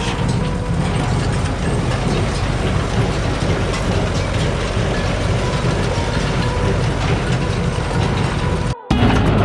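A vehicle engine running steadily with a heavy low rumble, broken by a brief dropout near the end.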